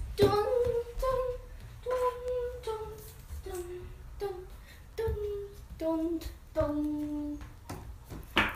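A person off-camera humming a simple tune: a string of about ten short held notes that step lower toward the end. A brief noise comes right at the end.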